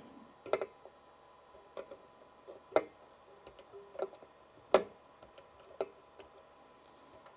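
Small hand tools clicking and tapping against a circuit board and its parts during soldering work, a handful of sharp irregular clicks with the loudest near the middle.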